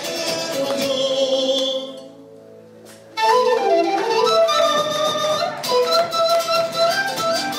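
Live Andean folk band playing, with a melody over strings and drum. About two seconds in the music dies away for about a second, then the band starts up again loudly.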